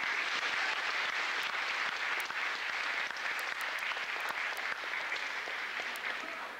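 Crowd applauding, starting suddenly and dying away near the end.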